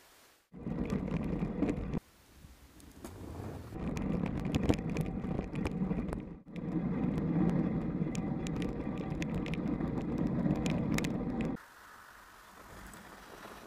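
Radon ZR Race 6.0 mountain bike ridden over a snowy forest trail, heard from an action camera riding along: a loud low rumble of tyres and wind on the microphone, full of quick rattles and knocks from the bike over bumps. It comes in three stretches that start and stop abruptly, then gives way to a quieter hiss near the end.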